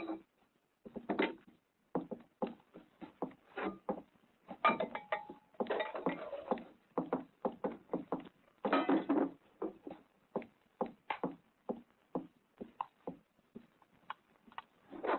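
Kitchen clatter: a steady run of short knocks and clicks from dishes and utensils being handled, with two longer scraping noises about five and nine seconds in.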